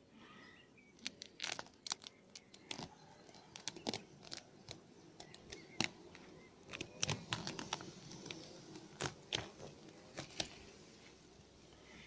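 A clear plastic cover sheet being peeled back off the top bars of a beehive's frames, crinkling and crackling in a long run of sharp snaps as it comes unstuck.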